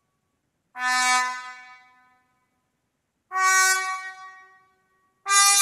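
Sampled trumpet playback from notation software: three short brass notes, each sounding for about a second and dying away, at about a second in, past three seconds, and near the end.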